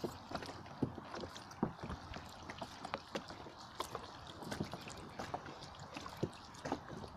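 Small choppy waves lapping against the shore, making a steady wash with many irregular light splashes and slaps.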